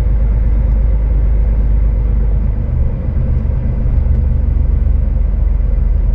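Scania S500 truck's diesel engine running steadily under low load as the truck rolls slowly, a deep rumble heard from the cab; the engine note shifts slightly about halfway through.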